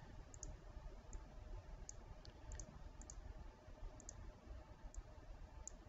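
Faint computer mouse button clicks, about a dozen, several in quick pairs, over a low background hum.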